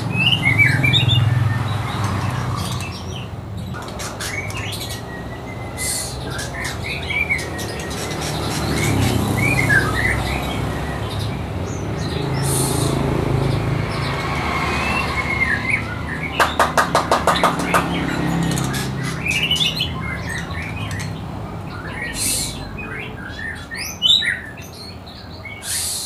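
Caged songbirds chirping and singing in short, scattered phrases. About two-thirds of the way through comes a quick even rattle of about a dozen clicks. A steady low hum runs underneath.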